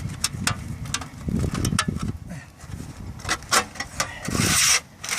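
Irregular scrapes, taps and rubbing from handling a new rubber pipe-flashing boot as it is cut and fitted over a soil stack pipe on a shingle roof. A longer hissing scrape comes near the end.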